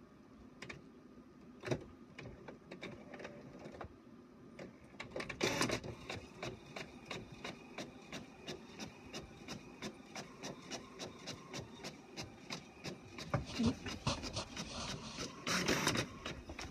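Inkjet all-in-one printer printing a colour page: a steady run of short clicks about twice a second as it works. Two longer, louder bursts come about five seconds in and again near the end.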